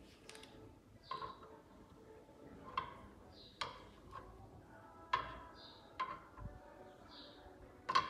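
Sharp clicks and knocks, about six of them, as a screwdriver works at the black plastic frame of a Beko washing machine door around its glass porthole; some clicks ring briefly.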